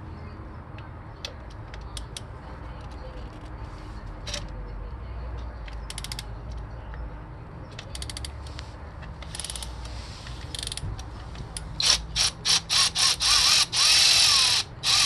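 A few scattered tool clicks, then about twelve seconds in a cordless power tool run in a quick series of short trigger bursts and one longer pull, spinning a fastener off the motorcycle's shifter peg so a washer can be fitted.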